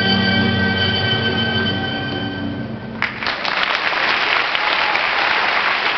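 The final held chord of the skater's program music, then about three seconds in the music stops and the audience breaks into applause.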